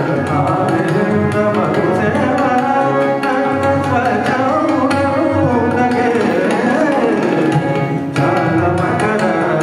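Male voice singing a Marathi natyageet (stage song) in Hindustani classical style, with gliding melodic runs, over tabla accompaniment.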